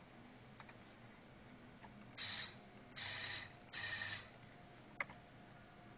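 Small stepper motor, powered by chopper amplifiers, running in three short high-pitched bursts of about half a second each, starting about two seconds in. A single sharp click comes near the end.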